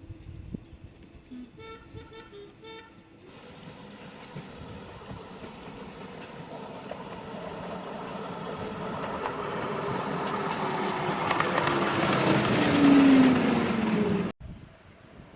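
A miniature railway train gives several short toots, then runs up and past, growing steadily louder with a falling tone as it passes, until the sound cuts off suddenly near the end.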